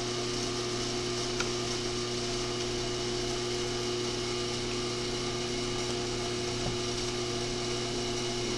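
1998 Audi A4 air-conditioning blower fan on its highest setting, blowing air steadily out of the dash vent, with a steady electrical hum underneath.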